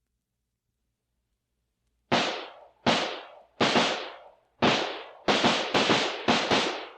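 M-1 rifle shots recorded from about 50 feet away, from a vintage sound effects record. After about two seconds of silence comes a series of single sharp cracks, each trailing off in a short echo. There are about eight of them, spaced less than a second apart and coming faster toward the end.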